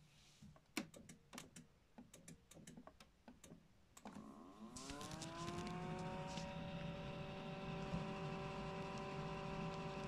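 LG WD-14370FD direct-drive washing machine starting a spin. Irregular clicking comes first, then about four seconds in the motor's whine rises in pitch and levels off into a steady whine of several tones over a low hum as the drum reaches speed.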